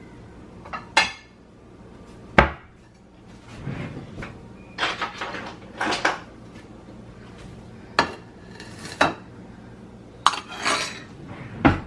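Kitchen bowl and utensils being handled: a series of separate knocks, clinks and clatters, the sharpest about two and a half seconds in and another just before the end.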